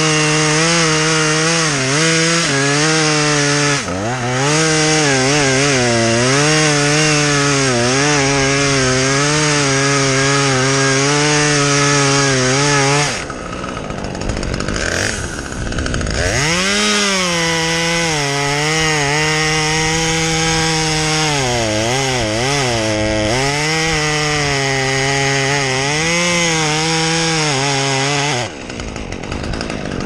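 Two-stroke chainsaw running at high revs and cutting pine, its pitch sagging and recovering as the chain bites. About halfway through it drops to idle for a few seconds, then revs up and cuts again, falling back to idle near the end.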